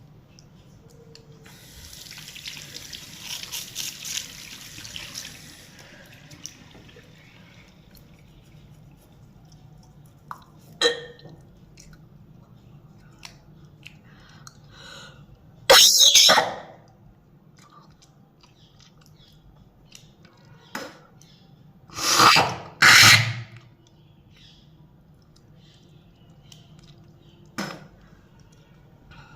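A tap runs briefly over a sink, then a person coughs hard several times while cleaning the tongue: a short cough, one long loud cough about halfway, two loud coughs close together later, and a last short one near the end.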